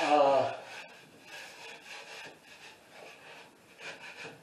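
Drywall knife scraping a partly dried coat of joint compound along a ceiling corner joint, in faint irregular strokes. The compound is still soft enough to scrape rough edges and ridges off without sandpaper.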